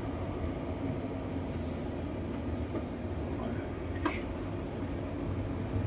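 Truck running steadily on the move, a low engine and road rumble heard from inside the cab, with a faint tick about four seconds in.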